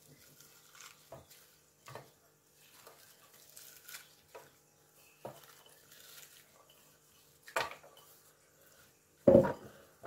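Diced onion being scattered by hand from a bowl over flaked fish in a metal baking tray: soft rustling with a few scattered clicks and knocks of the bowl and tray, the sharpest two in the last few seconds.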